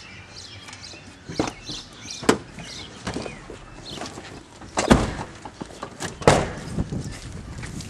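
Car doors being opened and shut: four sharp thunks, the loudest two in the second half.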